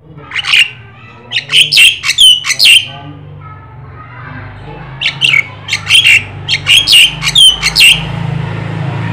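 Javan myna (jalak kebo) singing in two loud bursts of sharp, repeated chattering calls mixed with short whistled notes.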